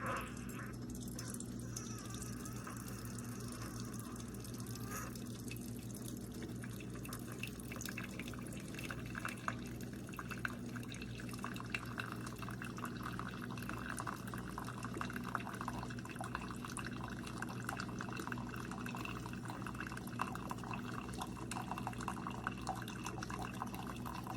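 Keurig K-Supreme single-serve coffee maker brewing: a steady pump hum, with coffee streaming and dripping into the cup, the trickle thickening about six seconds in.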